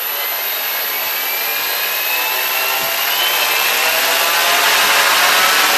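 Cheerson CX-20 quadcopter's four brushless motors and propellers spinning at idle, a steady whir with a whine that rises slowly in pitch. All four motors now run together, showing that the faulty ESC board has been fixed by replacing it.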